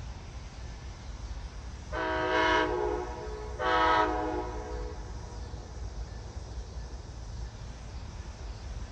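Horn of an Amtrak Siemens ALC-42 Charger locomotive sounding two blasts, a short one and then a longer one, each a chord of several notes held steady.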